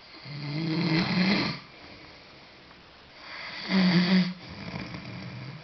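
A sleeping pet snoring: two snores about three seconds apart, each lasting a second or so, the second trailing off into a softer breath.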